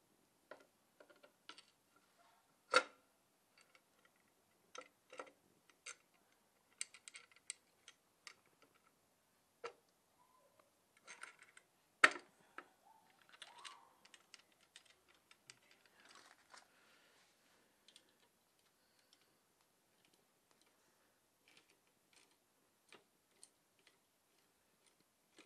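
Scattered light clicks and metallic clinks of tools and small engine parts being handled during reassembly of the Super Cub's cam-chain side, with two sharper knocks, about three seconds in and again about twelve seconds in.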